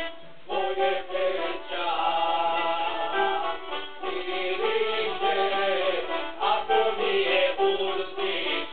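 Folk song sung over a band of plucked string instruments, with the voice coming in about half a second in after a brief dip.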